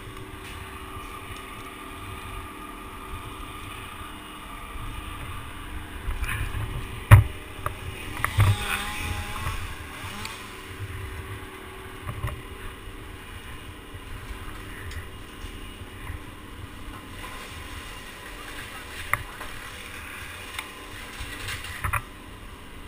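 Low rumble of wind and handling on a helmet-mounted camera as a tree climber shifts around the trunk, with a sharp knock about seven seconds in and another a second or so later. A small engine idles faintly and steadily underneath.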